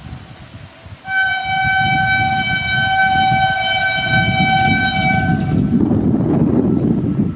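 WAP-7 electric locomotive sounding one long horn blast for about four and a half seconds as it approaches. After the horn stops, the rumble of the train running through grows louder.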